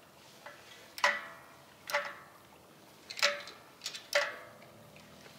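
Clicking from inside a Roojer propane patio heater's head as it is tilted: sharp metallic clicks with a short ring, about once a second. The owner takes them for the tip-over safety sensor's moving part, the auto shut-off that cuts the heater if it leans about 30 degrees.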